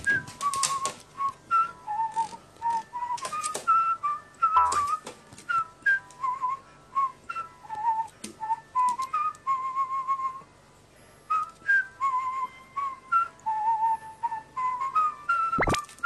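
A whistled tune of short, stepping notes, with sharp clicks between the notes. It breaks off briefly about ten seconds in, then resumes.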